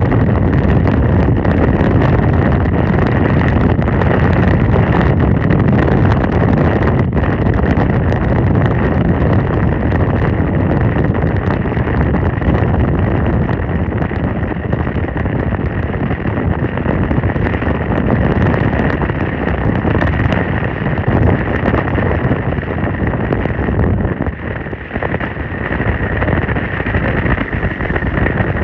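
Wind rushing over a phone microphone together with the rumble of a vehicle driving on a dirt road, loud and steady, dipping briefly near the end.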